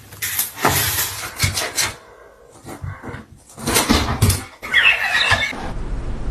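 A pet animal's noises: a series of noisy huffs and scuffles, then a short run of high chirping squeaks about five seconds in.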